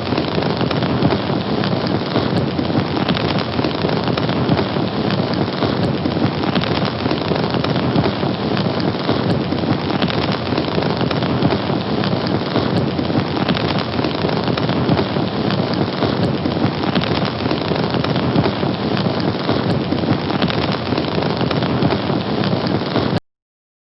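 Fire burning with a steady, dense crackle, cutting off abruptly near the end.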